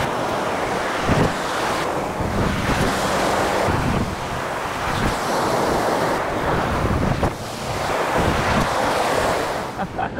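Rough surf washing and breaking over a rocky shoreline, with wind buffeting the microphone; a loud, continuous rush that swells and eases.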